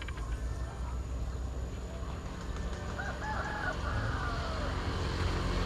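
A rooster crowing once, about three seconds in, over a steady low rumble.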